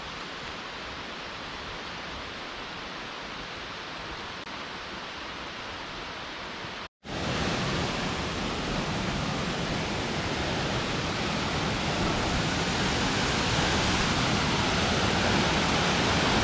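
Pistyll Cain waterfall, a steady rush of falling water. It cuts out for a moment about seven seconds in, then comes back louder and keeps growing louder.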